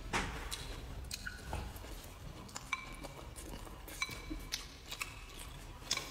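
Close-up mouth sounds of a person chewing food, with several sharp clinks of wooden chopsticks against a ceramic bowl, a few of them ringing briefly.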